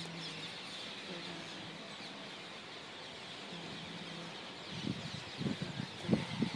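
A flock of rose-ringed parakeets calling from the trees: many overlapping short, high, shrill calls. From about five seconds in, loud irregular low buffeting rises over the birds.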